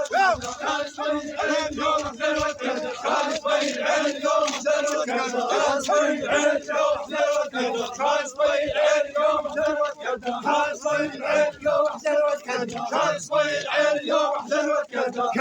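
Crowd of men chanting together in unison, a mourning chant of a funeral procession.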